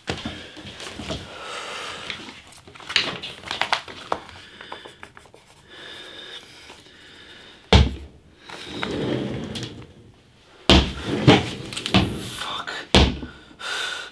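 Irregular thuds and knocks with rustling from a person moving about a small room, with the loudest thumps about halfway through and again a little before the end.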